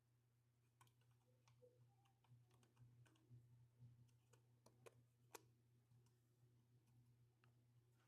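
Near silence with faint, scattered small clicks and taps from handling small camera parts by hand, over a faint steady low hum.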